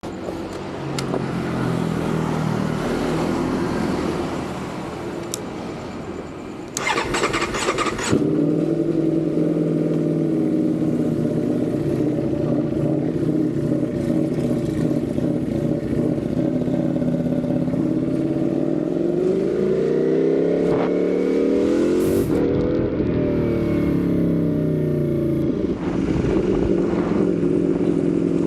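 Ducati Panigale V4 motorcycle's V4 engine started with a short crank about seven seconds in, then idling steadily, with the revs rising and falling once about two-thirds of the way through.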